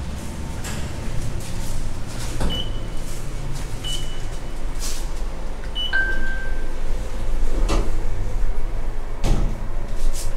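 Passenger lift: three short high beeps of button presses, then a lower, longer beep, with a few sharp clicks and knocks as the sliding doors work. A steady low rumble grows stronger in the second half as the car starts to rise.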